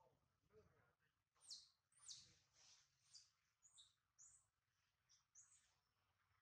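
A faint series of about eight short, high-pitched chirping calls, starting about a second and a half in, several of them sliding down in pitch.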